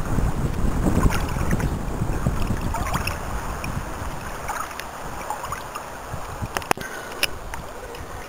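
Sea water lapping and splashing against the side of a small boat, with wind buffeting the microphone as a low rumble that eases after the first few seconds. A few sharp clicks come near the end.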